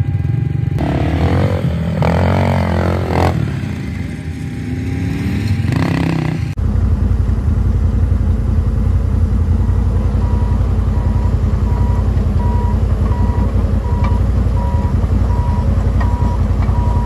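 Off-road vehicle engines running on a sand dune, then a sudden change to a Komatsu crawler bulldozer's diesel engine running steadily. From about ten seconds in, the dozer's reversing alarm beeps about one and a half times a second.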